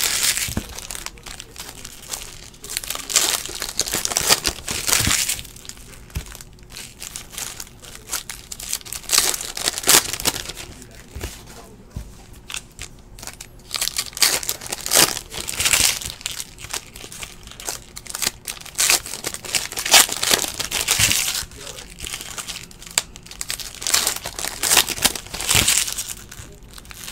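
Plastic wrappers of Panini Donruss basketball card packs crinkling in the hands, with cards sliding and shuffling against each other, in irregular bursts every second or two.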